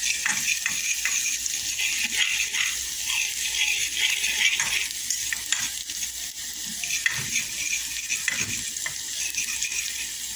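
Chopped onions sizzling as they fry in an aluminium saucepan, stirred by hand, with scattered light scrapes and taps of the stirring utensil against the pan over the steady sizzle.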